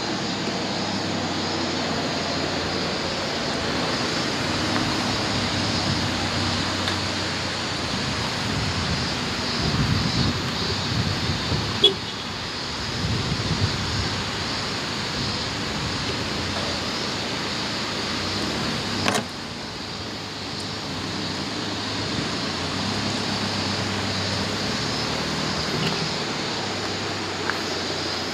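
Toyota HiAce camper van driving slowly over a gravel riverbed: a steady engine hum with tyre and road noise and a rushing background. A louder low rumble comes around ten to fourteen seconds in, and a sharp click about nineteen seconds in is followed by a slightly quieter sound.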